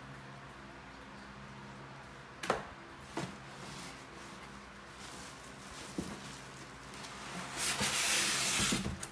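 Cardboard packaging handled, with a few light knocks as the box flaps are opened, then a loud rustle of plastic wrap and cardboard near the end as the espresso machine is lifted out of its box, over a faint steady hum.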